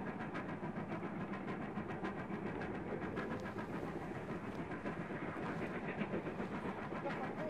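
Steam locomotive working hard, its exhaust chuffing in a quick, even rhythm.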